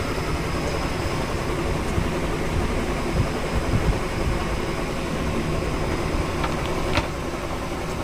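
Steady whirring hum of a running fan motor, with one short click about seven seconds in.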